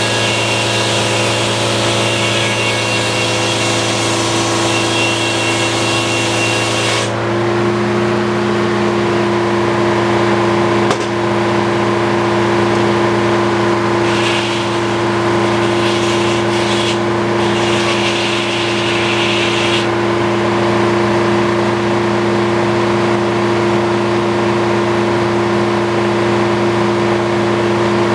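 Circular sawmill running: the blade cuts through a log for about the first seven seconds, then the cut ends suddenly and the power unit's steady drone rises slightly in pitch as the load comes off. Later come a few short bursts of hissing noise.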